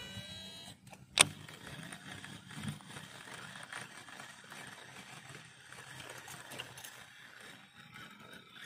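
Shimano DC baitcasting reel on a cast: the tail of the spool's falling electronic-brake whine dies away, and a sharp click about a second in marks the reel being engaged. A faint steady whir follows as line is wound in.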